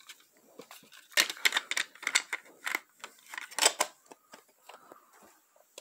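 Plastic VHS tape cassettes being handled: an irregular run of clicks and clacks starting about a second in and thinning out near the end.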